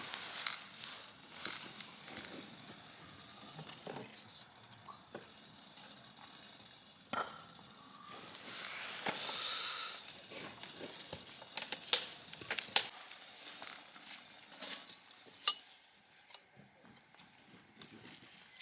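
Wood fire crackling in a small fire stove, with irregular sharp pops and a hiss that swells for a couple of seconds about eight seconds in.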